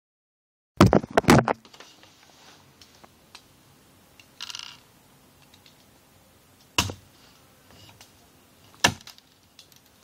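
Handling noise: a quick cluster of sharp clicks and knocks about a second in, a short rustle midway, and two more single knocks later, over quiet room tone.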